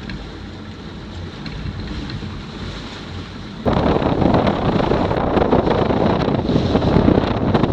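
Wind and sea noise aboard a sailboat under way at sea, with wind buffeting the microphone. A low rumble becomes suddenly much louder and more rushing about halfway through.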